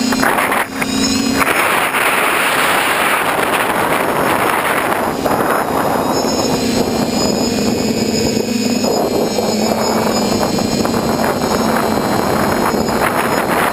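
TBS Discovery quadcopter's brushless motors and propellers running in flight, a steady hum with a high electric whine, heard from a GoPro on the airframe with wind rushing over the microphone. The hum fades for a few seconds about a second in, then returns as the quadcopter banks and turns.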